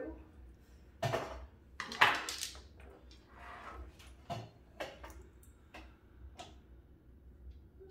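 Handling clatter: several sharp knocks and rattles of a tripod stand and the light's LED-strip arms being lifted and bumped, the loudest about two seconds in.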